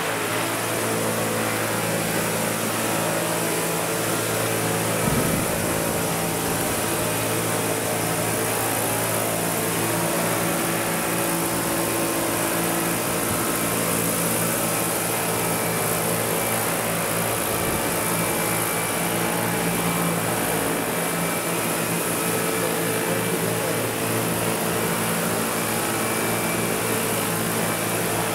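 Large radio-controlled Vario CH-47 Chinook scale model helicopters flying, their tandem rotors and drive running with a steady whirring hum of several pitches and a high hiss. A short thump comes about five seconds in.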